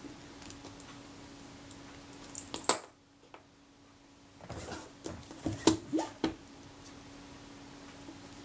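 Small metal camera parts clicking and tapping as they are handled: a few clicks about two and a half seconds in, then a cluster of clicks and handling noise a little past the middle. A faint steady hum runs underneath.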